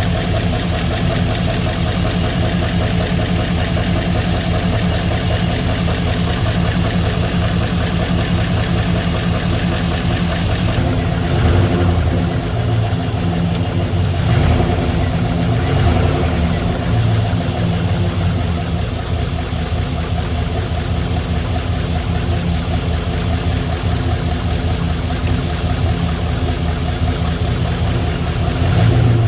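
GM 6.0-litre LS V8 (LQ4), just fitted with new rod bearings, idling on its first run, with a fast ticking noise from parts that the owner says are not yet getting much oil and may need a moment to pump up. The engine is briefly revved a few times around the middle.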